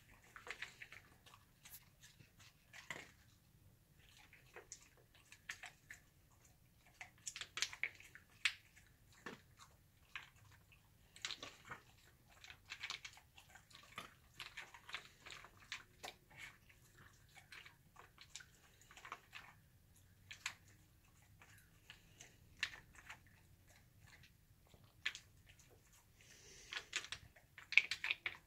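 Dog eating from a plastic slow-feeder bowl: scattered crunches and clicks as it chews the food and its teeth and muzzle knock against the plastic. The clicks come at irregular times, bunched into short spells, with the loudest spell near the end.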